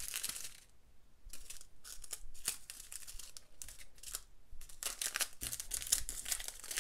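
Small plastic bags of diamond-painting drills crinkling and rustling in irregular bursts as they are picked up and sorted by hand, with a brief lull about a second in.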